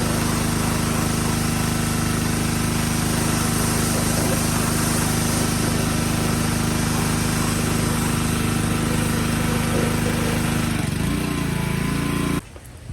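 Small gasoline engine of a pressure washer running steadily, cold and still wanting the choke. Its pitch dips briefly near the end before the sound cuts off suddenly.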